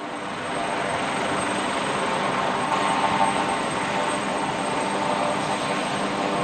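Aircraft engine noise, steady and dense, with a thin high whine running through it; it fades up over the first half second.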